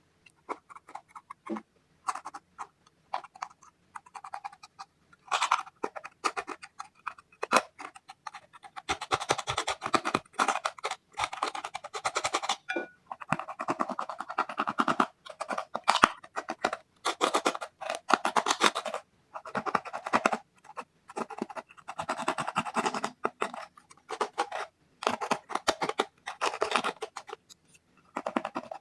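Slime being squeezed and kneaded by hand, giving sticky squelching and crackling in bursts of rapid little pops with short pauses between.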